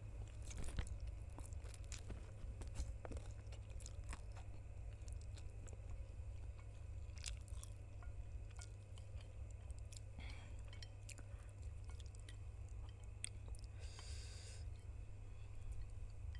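Close-miked chewing of spicy instant noodles: scattered wet mouth clicks and soft crunches over a steady low hum, with a short hiss about fourteen seconds in.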